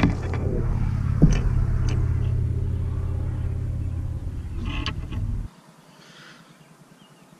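A loud, deep rumble with a few small clicks on top; the rumble cuts off suddenly about five and a half seconds in, leaving a much quieter background.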